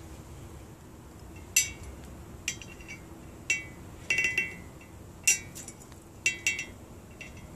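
Light glassy clinks, about eight at irregular intervals, some in quick pairs, each with a short ring. They come from an antifreeze ball hydrometer being worked in the neck of a glass bottle while it draws up a water sample.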